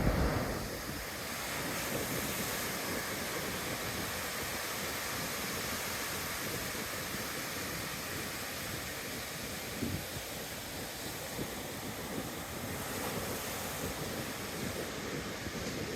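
Ocean surf washing onto a beach, a steady rush of breaking waves, with a little wind buffeting the microphone in the first second.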